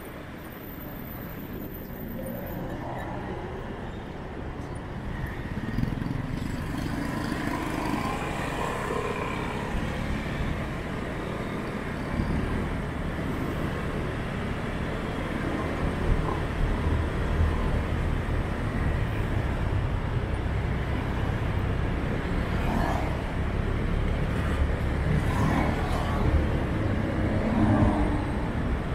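Street traffic heard from a moving car: a steady low engine and road rumble that grows louder about twelve seconds in, with other vehicles passing now and then.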